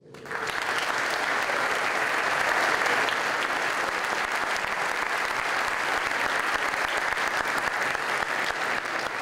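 Audience applauding steadily, a dense patter of many hands clapping that fades in at the start.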